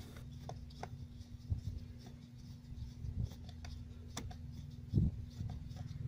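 Phillips screwdriver unscrewing a screw from a plastic steering column cover: irregular small clicks and scrapes of the tool turning in the screw head, over a low steady hum. There is a louder knock about five seconds in.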